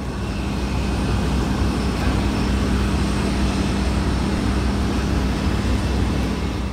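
Steady rumble and high whine of running jet aircraft turbines, with a low hum and thin high tones held throughout.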